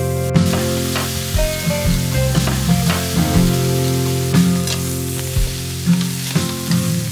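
Beef and leafy greens sizzling in a wok as they are stir-fried, with irregular knocks and scrapes of a wooden spatula against the pan.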